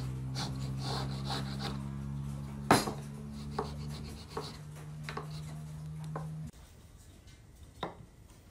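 Wooden marking gauge scratching as its pin scribes along the edge of a board, followed by a series of wooden knocks as the gauge and board are handled and set on the bench, the loudest about three seconds in. A steady low hum underneath cuts off suddenly about two-thirds of the way through.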